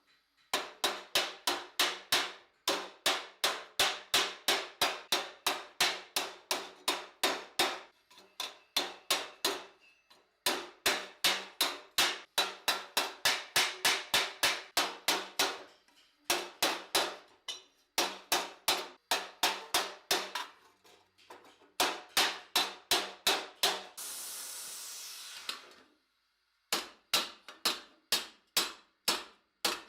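Hand hammer striking a steel armour plate in quick runs of about four blows a second, the plate ringing after each strike, as a gauntlet cuff is hammered into shape. Near the end the hammering stops for a two-second hiss.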